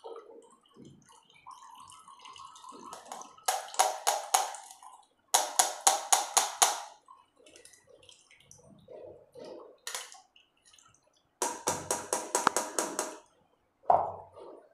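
Blended mint paste and liquid pouring and dripping through a small steel tea strainer into a steel saucepan, with three spells of rapid metal-on-metal clinking and scraping as the paste is worked through the strainer, and a single knock near the end.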